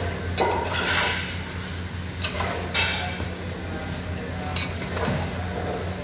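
Metal spoon scraping and clinking against an aluminium pot in a few strokes while stirring chopped vegetables and chicken, over a steady low hum.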